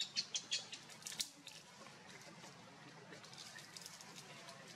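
Quick, sharp crackles of dry leaves and twigs as macaques move and shuffle in the leaf litter. The crackles come in a rapid run for about the first second and a half, then die down to faint rustling.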